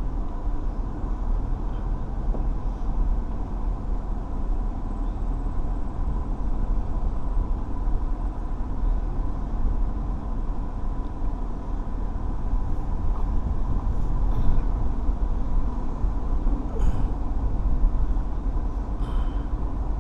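Steady low rumble of a car, engine and road noise heard from inside the cabin, with a faint steady tone above it.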